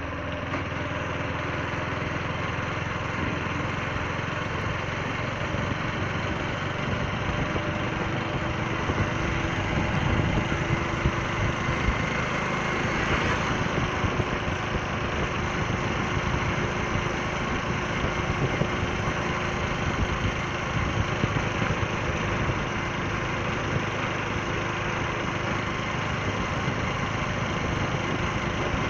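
A motor vehicle's engine running steadily, a continuous drone with no breaks.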